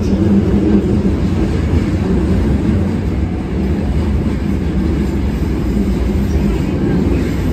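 Cabin noise of an Osaka Metro 22 series subway car running through a tunnel: a steady low rumble of wheels and running gear.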